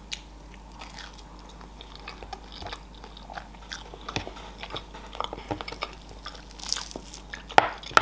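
Close-miked eating of barbecue-sauced pork ribs: chewing meat off the bone, with scattered short wet clicks. Near the end a sharper, louder crackle as a rib is pulled off the sticky rack.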